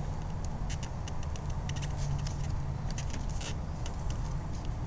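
Scattered light clicks and rattles of plastic headlight parts being worked apart by hand, over a steady low hum.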